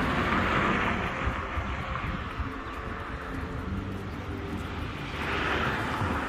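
Wind rushing over a phone microphone on a moving bicycle, with a low uneven rumble; the rush swells twice, about half a second in and again near the end.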